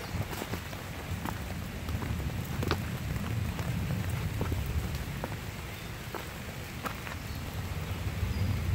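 Rain falling on wet foliage, with scattered sharp taps of drops over a steady low rumble.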